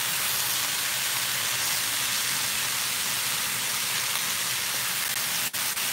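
Chunks of beef chuck roast and short ribs searing in hot beef shortening in a large skillet: a steady, even sizzle. It drops out for an instant near the end.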